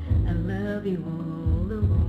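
Music: a Filipino pop love ballad, a voice singing a sustained melody over bass notes and accompaniment.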